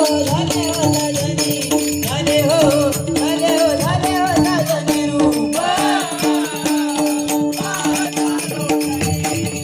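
Bhajan music playing steadily: a wavering melody over two held drone notes, with jingling hand cymbals and drum strokes keeping the beat.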